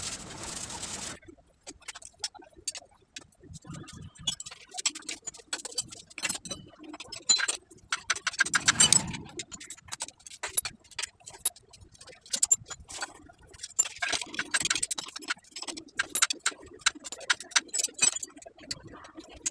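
Metal hand tools clicking and clinking against bolts and the engine casing as the bolts of a motorcycle's right-hand engine cover are undone. The clicks are irregular, with quick runs of them here and there.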